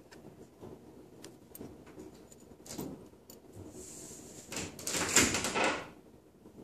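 Small scattered clicks and rustles of hands working fishing line and a hook, then a louder scraping rustle lasting about a second and a half, close to the microphone.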